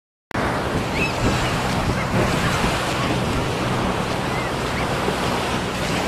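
Ocean surf washing onto a beach, with wind buffeting the microphone, cutting in abruptly just after the start.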